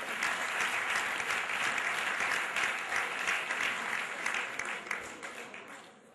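Audience applauding with many hands clapping, the applause dying away near the end.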